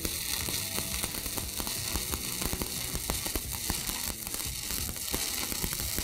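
Stick (shielded metal arc) welding arc burning as the electrode runs a bead across a steel plate: a steady hiss with a constant stream of sharp crackles and pops.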